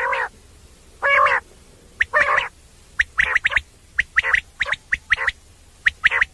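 Common quail calling: three longer calls about a second apart, then a quicker run of short, sharp notes in twos and threes.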